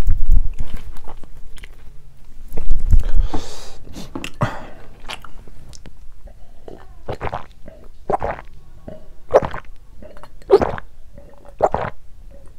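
Close-miked swallowing gulps as a man drinks from a glass mug, about one loud gulp a second from about seven seconds in. Before that, a few low knocks and a rustle, loudest about three seconds in.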